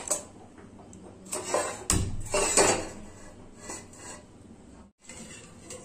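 Metal kadhai (wok) clattering and knocking on a gas stove, with scattered clicks and one sharp knock about two seconds in.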